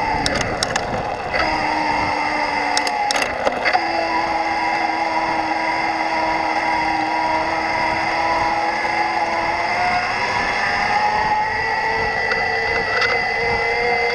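A Yamaha PW-ST mid-drive e-bike motor running on low assist, with a steady whine. There are scratchy chirping, chattering ticks, most of them in the first few seconds. The owner takes this for a sign that the drive unit does not sound right under gentle riding. The motor's pitch rises gradually from about ten seconds in.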